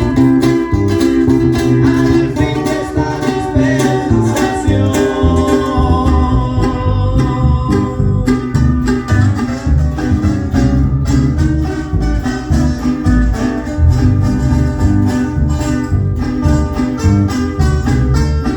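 A live band playing a Christian song: plucked guitars over a strong bass line and a steady beat, with singing.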